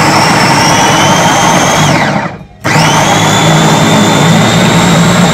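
MXNEC electric food chopper running, its blades grinding chillies, garlic and other curry-paste ingredients in the bowl; the motor whines, winds down about two seconds in, starts again half a second later, and winds down once more at the end as the button is pulsed on and off.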